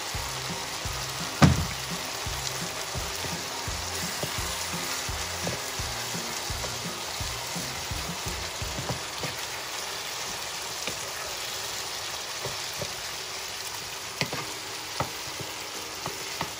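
Corn kernels and diced tomatoes sizzling steadily in a hot skillet while being stirred with a wooden spoon. One sharp knock about a second and a half in, and a few light clicks near the end.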